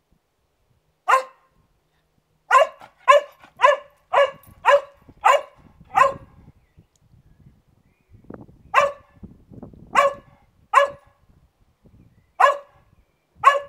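Black cocker spaniel barking: about a dozen short, sharp barks, a quick run of them about twice a second in the first half, then spaced further apart.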